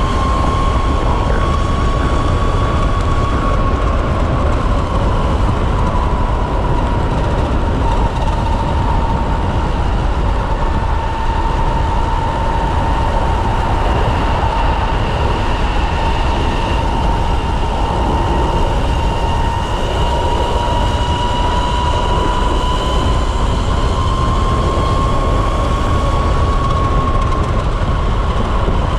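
Electric-converted Kawasaki KLX motorcycle cruising at speed: a steady whine from the electric drive that dips slightly in pitch as the bike slows and rises again as it speeds up, over heavy wind rumble on the microphone.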